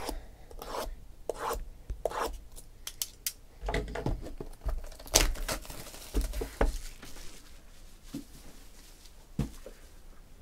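Sealed cardboard trading-card boxes being handled: irregular knocks, taps and rubbing as the boxes are lifted off a stack, moved about and set down, with the sharpest knock about five seconds in.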